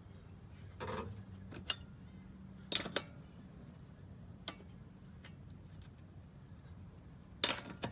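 Lug wrench clicking and knocking against the wheel's lug nuts as they are tightened, a handful of scattered sharp metal clicks with the loudest near the end.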